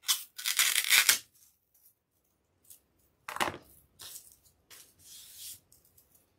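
Scissors cutting through a piece of styrofoam, two grating, squeaky cuts in the first second or so. Then shorter scrapes and rustles as the scissors are laid down and the foam piece is handled.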